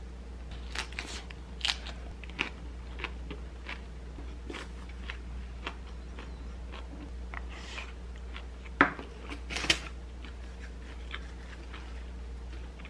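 Crunchy bites and chewing of a napa cabbage leaf wrap, mixed with scattered clicks and taps of a wooden spoon and chopsticks at the table. Two sharp clicks about a second apart, two-thirds of the way through, are the loudest. A low steady hum runs underneath.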